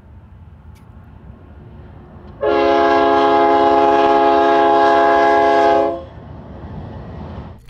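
A horn blast: a loud, steady chord of several notes held for about three and a half seconds, starting about two and a half seconds in and cutting off sharply, over faint low background noise.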